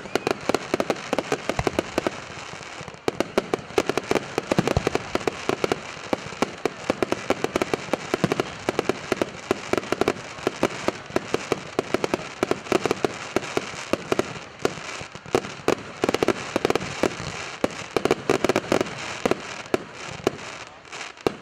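Aerial fireworks display at full intensity: a dense, almost unbroken barrage of shell bursts and crackling, with many sharp bangs each second.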